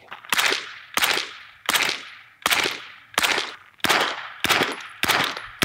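Suppressed 9mm MP5-pattern submachine guns firing single shots at a steady pace, about eight in all, roughly one every three-quarters of a second. Each shot is a sharp crack with a short echo tail.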